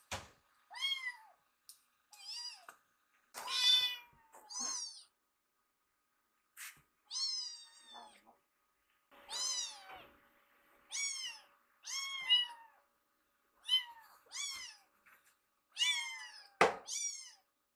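Kittens meowing over and over, over a dozen short high-pitched meows that each fall in pitch at the end, begging while they wait for food. A sharp thump about a second before the end is the loudest sound.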